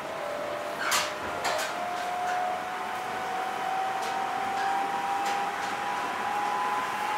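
Electric train running, a steady hiss with a motor whine that rises slowly in pitch as it picks up speed, and two sharp clacks about a second in.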